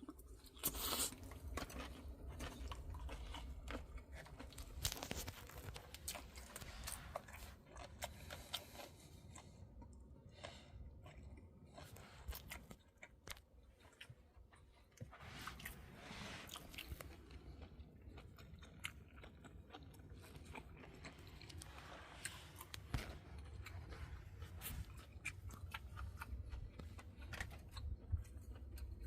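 Close chewing and crunching, many irregular crunches and clicks over a low steady hum.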